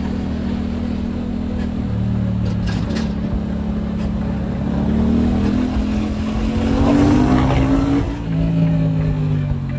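Yamaha MT-07's 689 cc parallel-twin engine running under load, its pitch climbing steadily to a peak about seven seconds in, then dropping sharply about a second later.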